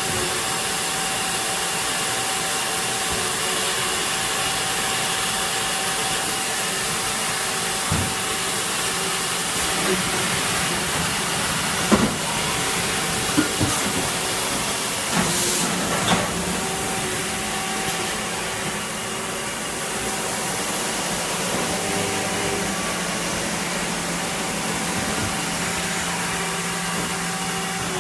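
CNC machine running with a steady hiss and faint hum and whine, with a few short clicks and knocks about halfway through.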